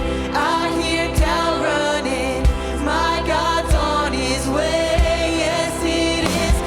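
Contemporary worship band playing with a singer over sustained keyboard chords, a drum beating steadily about once every second and a quarter.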